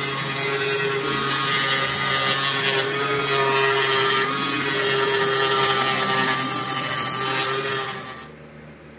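Electric random orbital sander running steadily against a knife's wooden handle, a constant hum under a sanding hiss. It shuts off about eight seconds in.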